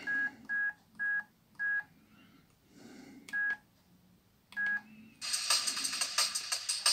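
Key-press beeps from a Jinga F200n push-button phone: six short beeps at uneven intervals as its keys are pressed. About five seconds in, a drum and bass MP3 starts playing from the phone's own speaker.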